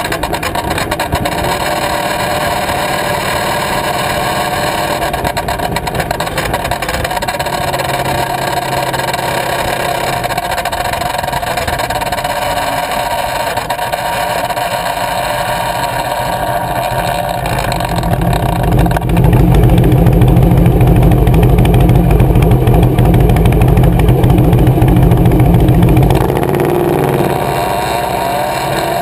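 Motorcycle engine and exhaust running steadily while riding, heard from low by the rear wheel. About two-thirds of the way through it gets much louder for several seconds under more throttle, then drops back near the end.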